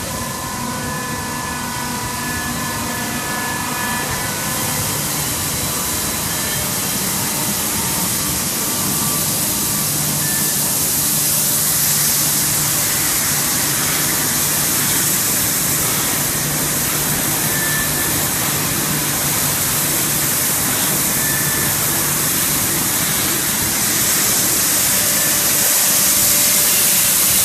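Plastic film recycling machinery running: a loud, steady rushing noise from the agglomerator's high-speed rotor churning shredded film, growing gradually louder. Faint steady whines sound in the first few seconds.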